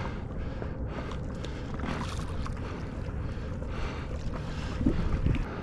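Wind buffeting the microphone over water noise around a small inflatable boat, with a louder moment about five seconds in.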